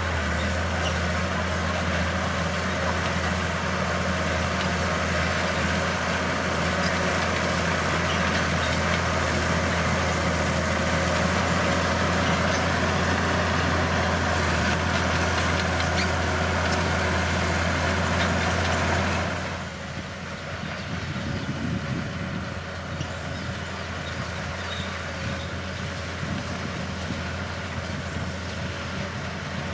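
Bulldozer's diesel engine running steadily with a deep drone. About two-thirds of the way through it suddenly drops quieter, the deep drone falling away, and a rougher, lighter engine sound carries on.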